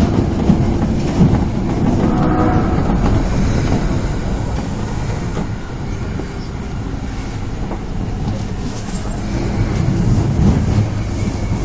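Osaka Municipal Subway 22 series train running through the tunnel, with steady wheel-and-rail rumble and clickety-clack from the bogies, heard from the front of the train as it heads into the next station.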